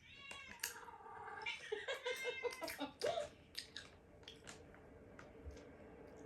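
Cat meowing, several drawn-out calls that bend in pitch over the first three seconds, followed by scattered light clicks and rustles.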